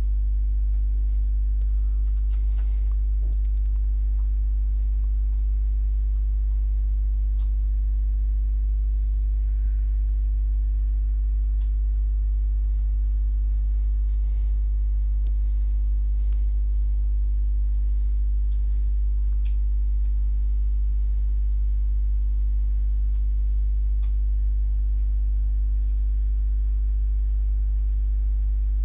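Loud steady low hum that does not change, with a few faint clicks and taps from hands and a screwdriver working inside the opened cassette player's chassis.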